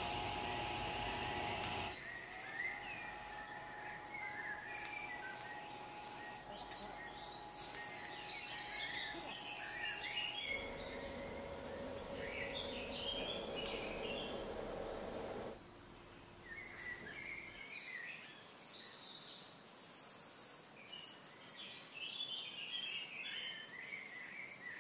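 A TIG welding arc hisses steadily for about the first two seconds and stops at a cut. After that, birds chirp and twitter in short high calls over a faint background hum.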